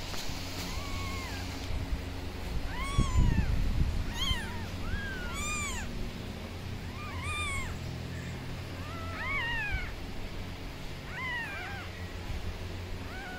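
Newborn kittens mewing: about a dozen short, high cries that rise and fall in pitch, some overlapping, with a low rumble swelling about three seconds in.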